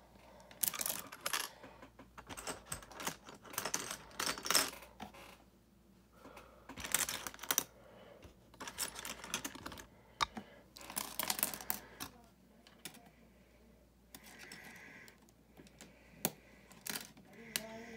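LEGO plastic pieces clicking and rattling as they are handled and snapped together, in several bursts of rapid clicks, growing sparser after about twelve seconds.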